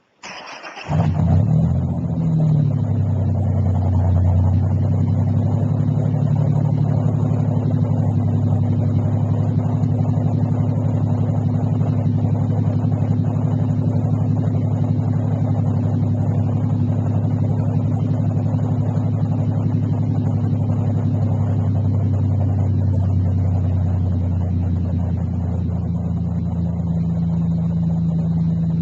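Ford Ranger 4.0-litre V6 engine starting up about a second in, then idling steadily with a deep rumble.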